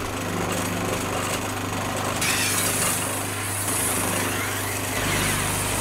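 A scythe blade being sharpened on a motor-driven grindstone: the machine hums steadily, and from about two seconds in a hissing grind comes in as the blade is pressed to the turning stone.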